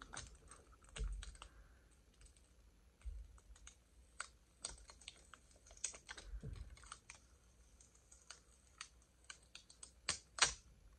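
Fingernails picking at and peeling the clear plastic seal sticker off rolls of washi tape: faint, scattered small clicks and crinkles, with a few louder crackles about ten seconds in.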